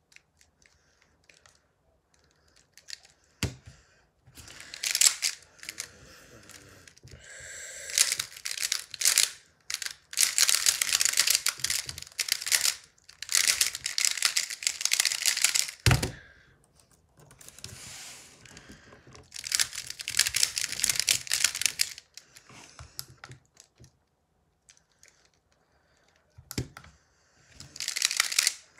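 A Square-1 puzzle being turned fast: dense plastic clicking and rattling of its layers twisting and slicing, in bursts several seconds long. A few sharp knocks fall between the bursts.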